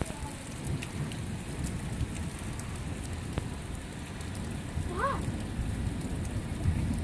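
Steady rain falling: an even hiss with scattered drop ticks, and one short rising chirp about five seconds in.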